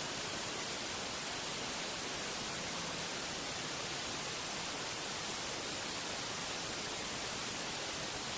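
Steady, even hiss like static, unchanging throughout, with no other distinct sounds.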